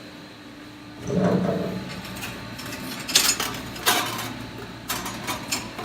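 Stainless steel sheet and clamps being handled on a laser cutter's metal slat bed. A scraping about a second in, then several sharp metallic clanks and clicks.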